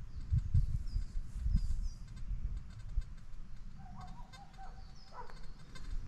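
Faint, short, high bird chirps over irregular low thumps and rumble. A brief held call, rising at its end, comes about four to five seconds in.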